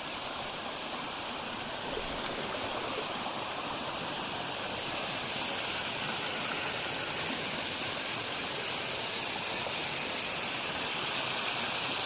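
Steady rushing of water falling and running over rocks at a creek's waterfall.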